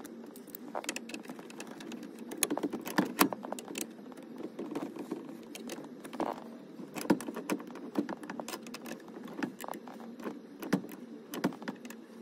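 Irregular metallic clicks and clinks of small hardware and hand tools being handled while steering-wheel hub bolts are fitted.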